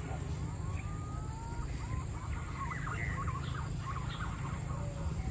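Wind blowing across the microphone, under a steady high insect buzz. Birds call over it: a few thin sliding calls, then a short run of quick chattering calls in the middle.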